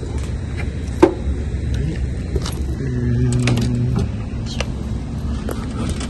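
Scattered sharp clicks and knocks, the loudest about a second in, over a steady low rumble, with a brief hum in the middle.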